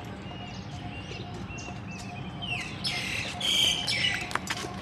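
Birds chirping in the trees, short high chirps at first, then a louder run of harsher calls about halfway through, the first sliding down in pitch, over a steady low background hum.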